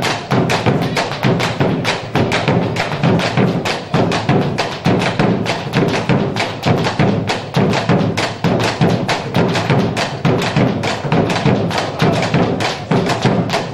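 Argentine folk music dominated by a fast, even run of sharp percussive strikes, several a second.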